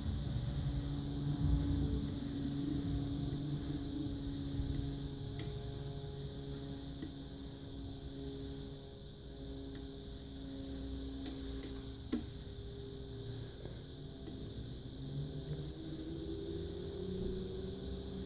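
Pick and tension wrench working the pins of a practice pin-tumbler lock, giving a few faint sharp clicks, most of them about five seconds in and around twelve seconds in, over a steady low hum.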